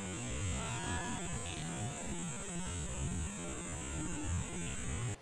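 Steady background hum with a high hiss and an uneven low rumble; no distinct event stands out.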